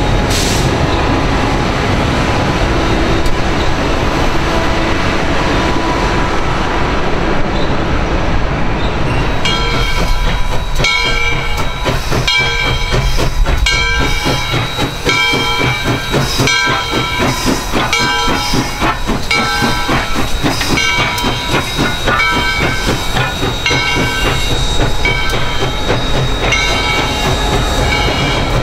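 A train's steady rumble as Norfolk Southern diesel locomotives pass. About nine seconds in it gives way to the steam locomotive Southern Railway 630: a locomotive bell rings steadily, a little more than once a second, over the hiss of steam.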